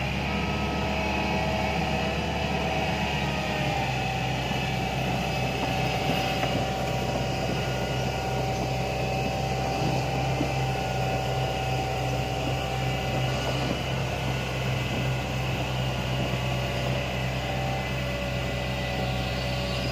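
Hitachi hydraulic excavator's diesel engine running steadily while the boom and bucket move, a low drone with a higher whine held over it.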